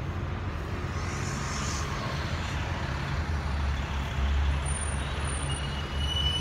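Outdoor background noise: a steady low rumble, with a short hiss about a second in and a faint high whine near the end.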